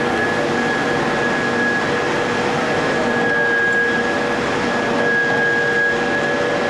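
D51 ring rolling mill running as it rolls a red-hot forged ring: a constant mechanical drone with a thin high whine that swells twice, about three and five seconds in.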